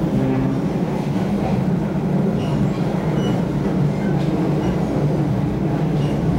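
Steady rumble of a passenger train running along the track, heard from inside the carriage.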